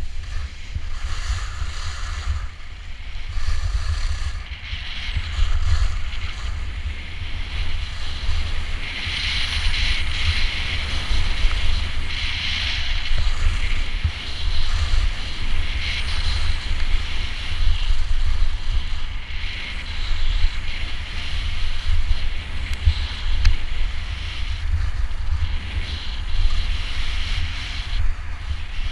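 Wind buffeting the microphone of a camera carried while skiing downhill, over a steady hiss and scrape of skis on snow that swells and fades with the turns.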